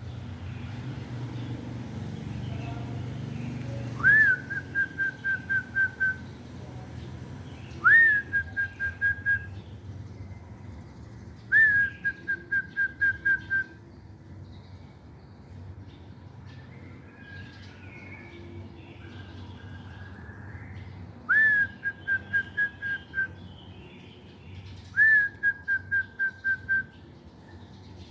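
Zebra dove (perkutut) cooing its song, repeated about every four seconds with a longer pause midway. Each phrase is an upswept opening note followed by a quick run of about seven short, clipped notes.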